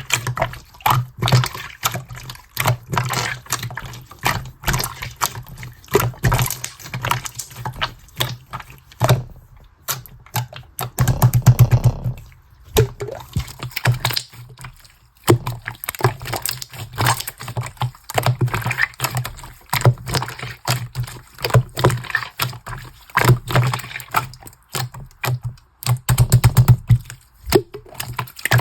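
Slime being squeezed and pressed by hand: a continuous run of sticky, wet clicks and pops, with two louder, denser stretches.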